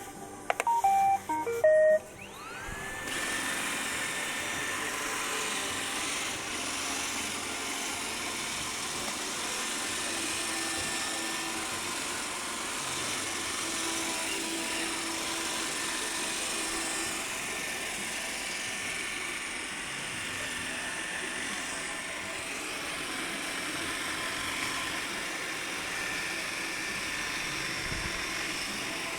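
Robot vacuum cleaner playing a short beeping start-up tune of a few stepped tones, then its motor spinning up with a rising whine and running with a steady whir.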